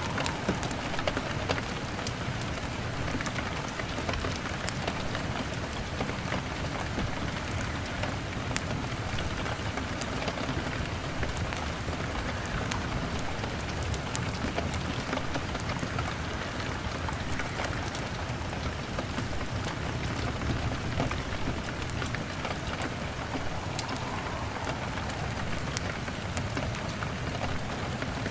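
Steady rain hammering on a window pane, with scattered sharp crackles of a log fire.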